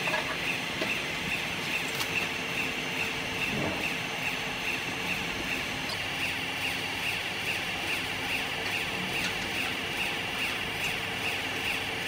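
Vertical hydraulic cardboard baler's electric motor and hydraulic pump running steadily, with a low hum and a high whine that pulses evenly several times a second.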